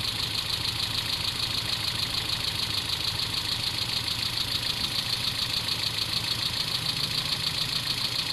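Mitsubishi 4G33 four-cylinder engine idling steadily with a fast, even pulse. The idle is being tuned at the carburettor screw for its highest point, on an engine diagnosed with an intake vacuum leak.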